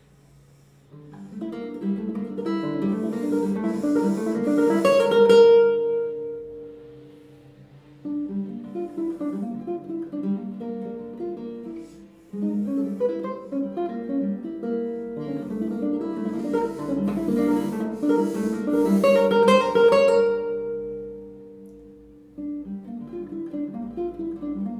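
Solo nylon-string classical guitar played fingerstyle. Plucked, arpeggiated phrases start about a second in and swell to a loud, ringing peak about five seconds in and again near twenty seconds, each dying away before the next phrase begins.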